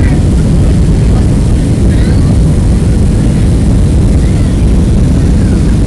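Cabin noise inside a Boeing 737-700 on approach to land: a loud, steady low rumble of its CFM56 turbofan engines and the rushing airflow, heard from a window seat.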